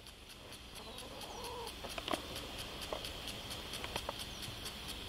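A hen clucking, with a short call about a second in, over a steady high-pitched background drone. A few sharp clicks or knocks come later.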